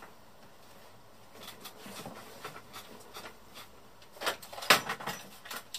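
Handling of a leather bag: rustling and scattered clicks as its flap is opened and a hand goes in, with a couple of sharper knocks about three-quarters of the way through.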